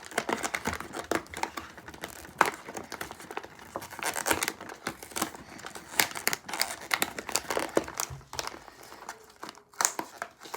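Plastic snack wrapper crinkling and crackling as it is handled and worked at, in irregular bursts.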